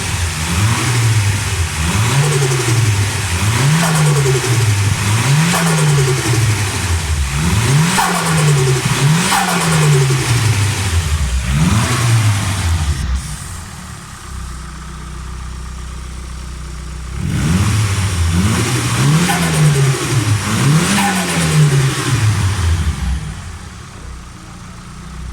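Nissan SR20DET turbocharged 2.0-litre four-cylinder, with a 3-inch exhaust and an open Apexi air filter, revved in a series of quick throttle blips, with turbo flutter as the throttle snaps shut after each rev. It settles to idle for a few seconds about halfway through, revs several more times, and drops back to idle near the end.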